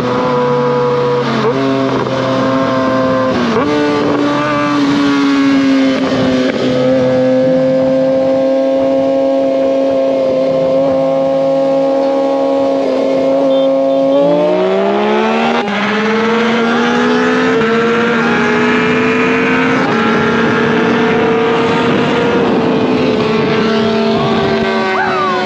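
Kawasaki ZX-6R's 636 cc inline-four engine running at high revs, holding a steady pitch for several seconds at a time. About halfway through its pitch rises in steps as it accelerates.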